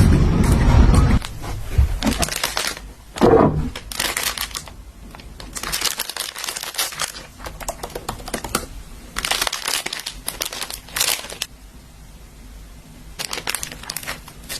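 Plastic packaging crinkling and rustling in repeated bursts as it is handled. A loud low rumble cuts off about a second in.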